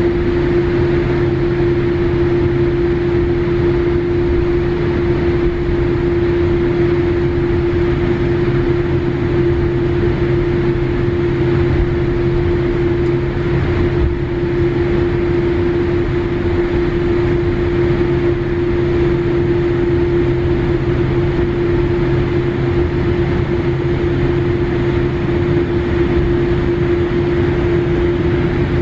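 Airliner cabin noise while taxiing after landing: a steady hum of the jet engines at idle and the cabin air, with one clear held tone over it and no sudden events.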